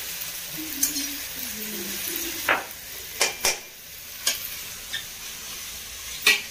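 Sliced onions and green capsicum sizzling in oil in a steel kadai, being browned, with a steady hiss. A perforated steel spatula clinks and scrapes against the pan several times as they are stirred, the loudest clink near the end.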